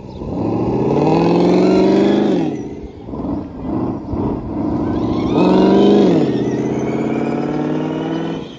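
Software-simulated straight-piped HEMI V8 engine sound from the sound controller's speaker on a radio-controlled pickup truck, revving as the truck drives. The pitch climbs for about two seconds and falls, three short throttle blips follow, then it jumps up again, holds and drops off near the end.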